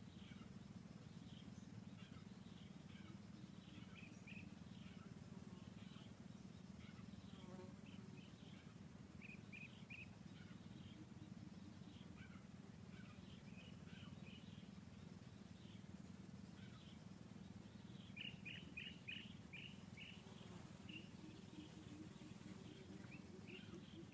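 Faint birds chirping in short, scattered calls, with a quick run of chirps about three-quarters of the way through, over a steady low background hum.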